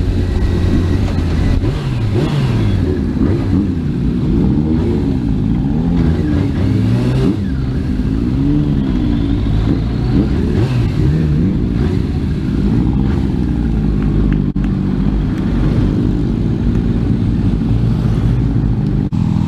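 Suzuki RF600R motorcycle's inline-four engine heard from the rider's seat, revving up and down again and again at low road speed, with a steadier note near the end.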